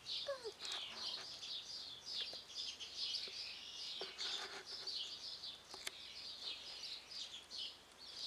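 Birds chirping, a steady run of short high chirps repeating a few times a second, with a brief falling whistle about half a second in.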